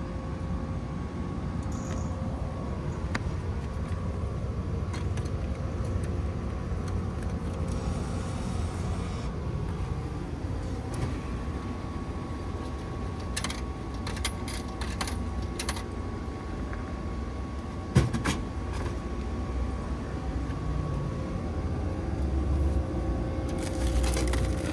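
Frozen-food vending machine being operated under a steady low outdoor rumble and faint hum, with scattered clicks and one sharp knock about 18 seconds in. Near the end, clicks and rustling as the delivery-tray flap is pushed open and the wrapped packet is taken out.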